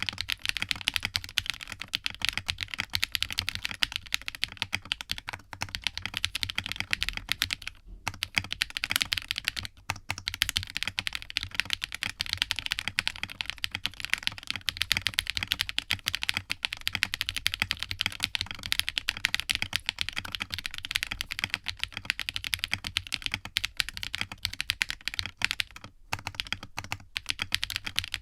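Fast, continuous typing on a 60% mechanical keyboard fitted with KTT Rose switches, gummy-O-ring mounted on silicone cord stock with an FR4 half plate and a flex-cut PCB. The keystrokes come as a dense run of clacks, broken by a few brief pauses.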